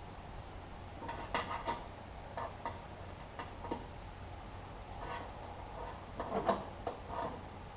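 Scattered light clicks and creaks from a jack slowly pressing a dent out of a steel car fender, coming in two loose clusters a few seconds apart over a steady low hum.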